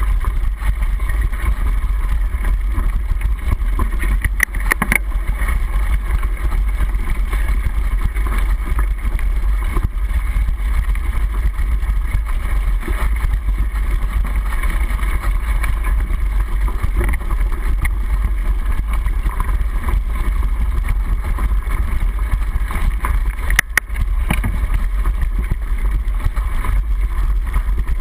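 Mountain bike riding over a dirt forest trail, heard through a handlebar-mounted camera's waterproof housing: a steady, muffled rumble of tyre and trail vibration, with a sharp knock about four seconds in and another near the end.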